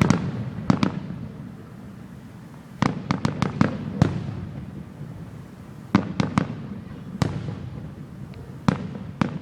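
Aerial fireworks bursting in clusters of sharp bangs, several in quick succession, with a low rumble carrying between the clusters.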